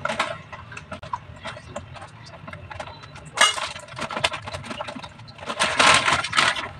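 A steel spoon clinks and taps against a steel bowl, and a plastic packet crinkles loudly twice, about three and a half seconds in and again near the end, as gram flour is tipped out of it into the bowl.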